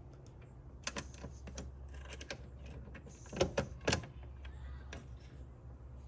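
A few sharp knocks and clicks of handling, two about a second in and three close together about three and a half to four seconds in, over a steady low hum.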